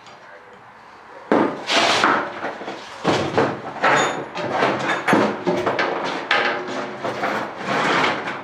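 Irregular metallic clanks and knocks: a spanner and metal-plated rubber mounts working against a finned aluminium tank while the mounts are bolted on and the tank is handled.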